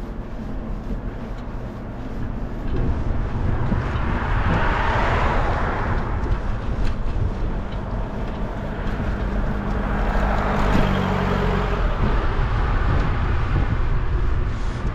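Road traffic passing a moving bicycle: two vehicles go by, their tyre noise swelling and fading about four to six seconds in and again around ten seconds, over a steady low rumble of wind on the microphone.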